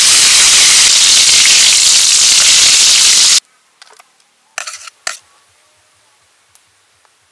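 Hot oil sizzling loudly as a whole Muscovy duck deep-fries in a wok, cutting off abruptly a little over three seconds in. A second or so later come a few short scraping clinks of a metal plate set down in the wok.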